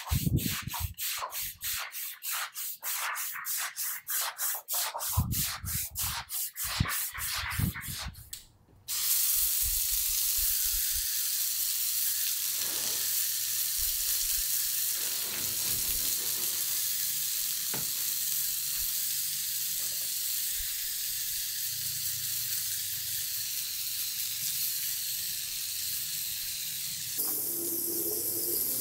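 A stiff brush scrubbing degreaser foam on wet concrete in quick, even strokes. After a sudden change about nine seconds in, a hose spray nozzle hisses steadily as it washes the soapy floor down.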